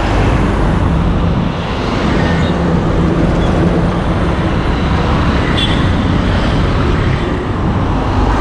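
Steady rush of fast traffic passing close by on a multi-lane highway: car tyres and engines going by one after another, with a bus coming past near the end.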